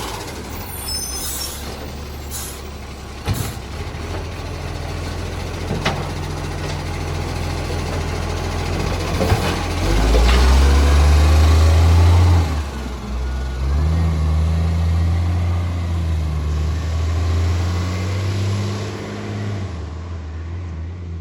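Diesel engine of a recycling garbage truck with an exhaust leak, running and rising in loudness twice before dropping back, with a few sharp clicks along the way.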